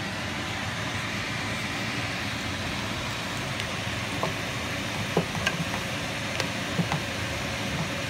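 Diced onions and bell peppers sizzling in hot oil in a non-stick pan with a steady hiss while being stirred with a wooden spoon, with a few sharp ticks from about four seconds in.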